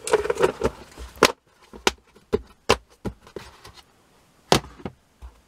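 Plastic sweet tubs being handled: a lid pressed on and the tubs lifted and set down on one another, giving a run of rustling handling noise and then a series of sharp plastic clicks and knocks, the loudest about a second in and another near the end.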